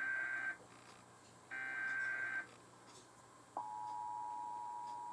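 Emergency Alert System header tones: the end of one SAME data burst and then another, each about a second long, then a pause and the EAS two-tone attention signal (853 and 960 Hz) starting about three and a half seconds in and holding steady. This is the opening of an EAS alert, here the national periodic test.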